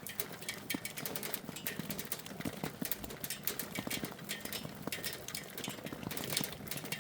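Hailstones striking hard surfaces: a dense, irregular patter of sharp little clicks, several a second.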